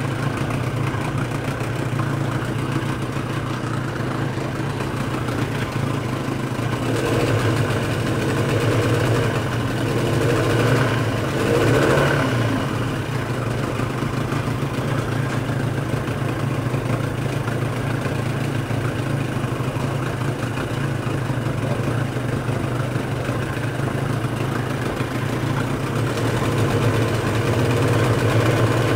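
Parsun 25 two-stroke, two-cylinder outboard engine running at idle, growing louder for a few seconds a little past the middle before settling back. It is being run after its water-pump base seal was glued to stop exhaust gas blowing into the cooling water; at idle the pump gives too little water pressure, the cause of its overheating.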